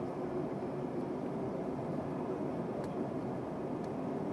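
Steady cabin noise of a Boeing 747-400 taxiing, heard from the upper deck: the engines' hum and the rumble of the airframe, with no change in level.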